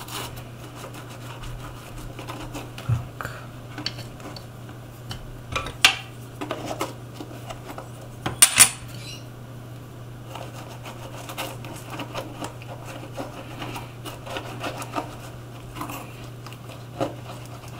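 Scattered clinks, taps and knocks of tools and the shoe being handled on a workbench during sole repair, the loudest a sharp double click about eight and a half seconds in, over a steady low hum.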